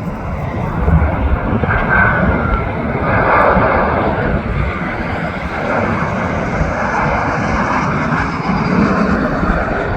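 Boeing 737 jetliner passing low overhead on its landing approach, its jet engines a loud, steady rushing noise that swells about a second in and holds. Wind rumbles on the microphone underneath.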